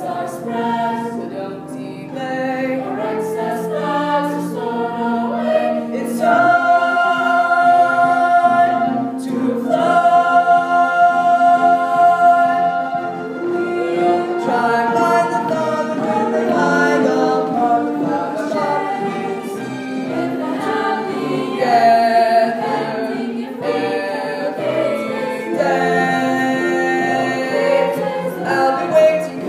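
A young stage cast singing a musical-theatre number together as a chorus, with long held notes about six and ten seconds in.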